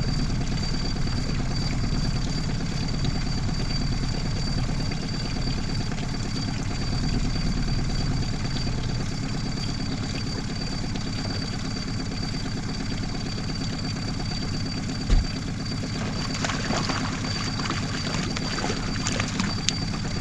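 Boat outboard motor running steadily at low trolling speed, with a thin high whine. There is a single sharp thump about 15 seconds in, and a run of light clicks and rattles over the last few seconds.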